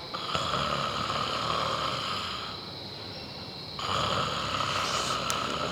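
A man snoring: two long snores with a quieter lull of about a second between them.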